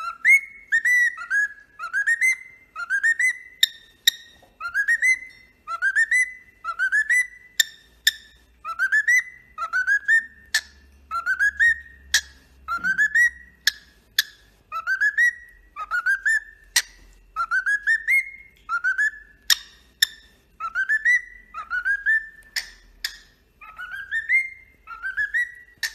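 Cockatiel whistling a long run of short upward-sliding notes, about two a second, over and over.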